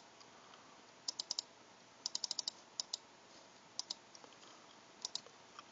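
Laptop keyboard keys tapped in short, quick bursts of a few keystrokes at a time, sharp light clicks separated by pauses.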